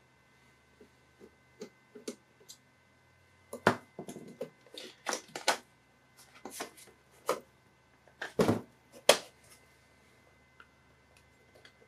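Small clicks, taps and knocks of a screwdriver, screws and casing parts being handled while a computer power supply is taken apart. They are sparse and faint at first, then come in a busier, louder run in the middle before thinning out again.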